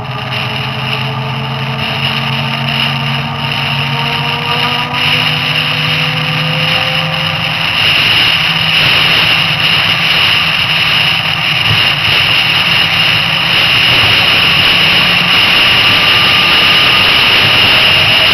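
Electric motorcycle's EnerTrac hub motor whining at highway speed, its faint tones sliding slowly upward in pitch, under a steady rush of wind and tyre noise that grows gradually louder.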